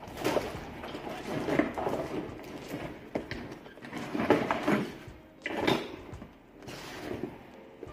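A fabric dive bag being handled and opened while an underwater camera housing is pushed inside it: irregular rustling and rubbing with a few knocks.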